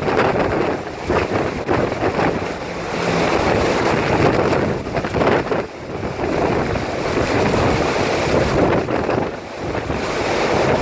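Typhoon-force wind from the inner core of a Category-3 typhoon, blowing hard and loud in surging gusts that buffet the microphone.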